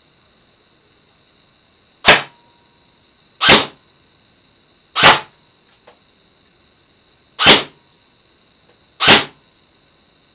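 Specna Arms SA-E04 Edge airsoft electric rifle (AEG) firing five single shots of 0.30 g BBs through a chronograph, each shot a short sharp crack, spaced about one and a half to two and a half seconds apart.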